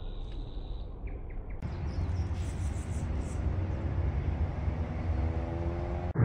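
Outdoor ambience: a steady low rumble and hiss that gets louder about a second and a half in, with a faint high whistle before that.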